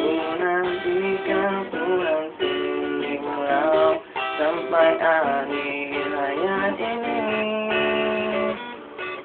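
Music: a song with strummed acoustic guitar and a melody line on top, in a stretch without sung words. The sound is dull, with nothing above the middle highs.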